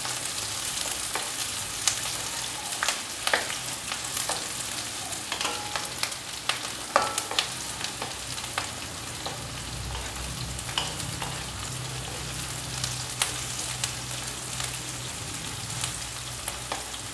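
Chopped onion, garlic and ginger frying in hot oil in a non-stick kadai: a steady sizzle, with the wooden spatula scraping and tapping irregularly against the pan as it is stirred.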